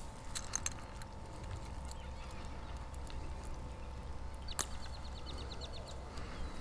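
Low wind rumble with faint clicks and handling noises while a small fish is worked loose in a landing net. About four and a half seconds in comes a sharp click, then a quick run of about a dozen high ticks lasting just over a second.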